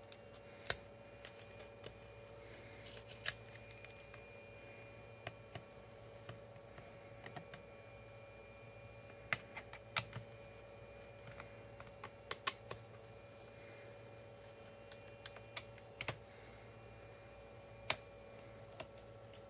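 Irregular sharp clicks and taps of a Dell Inspiron 15 7000 gaming laptop's plastic case and parts being handled while it is taken apart, over a faint steady hum.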